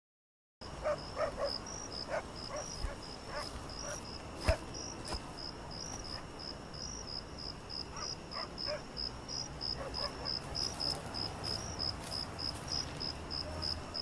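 High-pitched insect chirping that repeats steadily about three times a second, with a few faint clicks and soft tones underneath.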